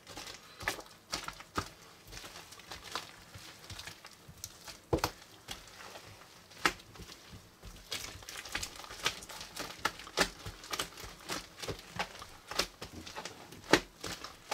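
Hands kneading and squeezing a large mass of slime mixed with putty and beaded floam, making irregular sticky clicks and crackly pops, several a second.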